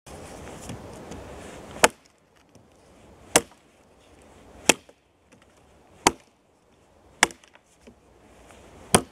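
An axe chopping into a stick laid across a log: six sharp single strikes, roughly one every second and a half.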